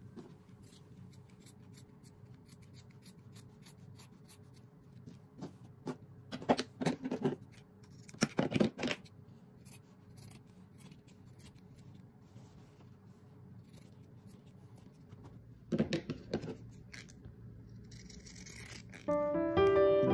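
Scissors snipping through fabric and interfacing seam allowance as it is trimmed: a run of short cutting snips, loudest in two quick clusters about a third of the way in and another near three-quarters of the way through.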